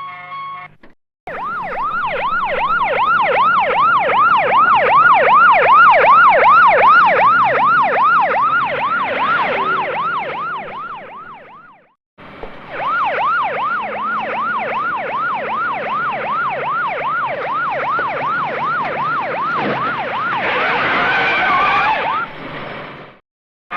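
Emergency-vehicle siren in fast yelp mode, its pitch sweeping up and down about three times a second, played as two runs with a short break between them. Near the end of the second run a harsher, noisier burst joins in.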